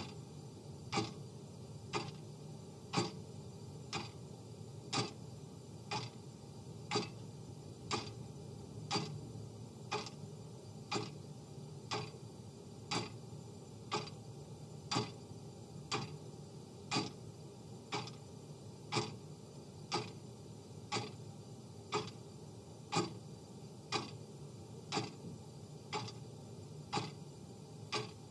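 Clock ticking sound effect, one sharp tick a second, evenly spaced, over a low steady background noise.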